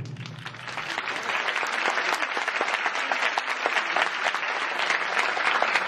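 Audience applauding, swelling over the first second or two and then holding steady, as the ring of the last taiko drum strokes dies away.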